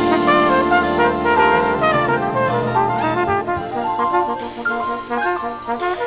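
Recorded big-band jazz with the brass section playing full ensemble lines.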